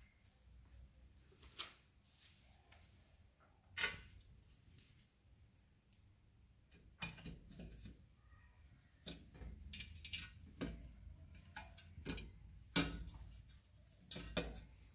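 Scattered metallic clicks and taps of bolts and a steel TV wall-mount bracket being handled and fitted by hand, a few at first and coming more often in the second half.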